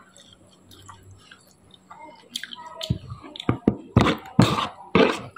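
Close-up eating sounds: a mouthful of bamboo shoot dipped in sambal being chewed, quiet at first, then a quick run of sharp, wet clicks and smacks in the second half.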